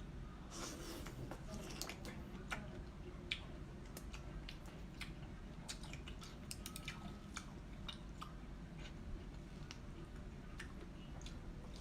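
A person eating: irregular small clicks and crunches from chewing and handling food.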